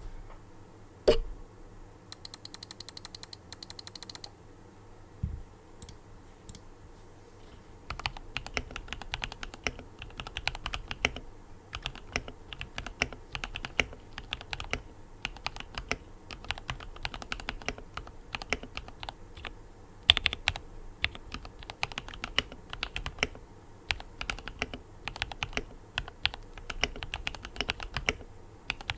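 Typing on an Akko ACR 87 mechanical keyboard fitted with Gateron Milky Yellow Pro linear switches. A few separate key strikes come in the first seconds, then steady fast typing from about eight seconds in.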